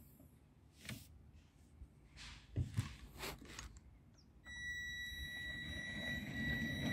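A few light handling clicks and knocks, then about four and a half seconds in the electric drive of a battery-operated 5-inch gauge locomotive starts up with a steady high-pitched whine and a low rumble that grows louder as it moves off hauling three coaches.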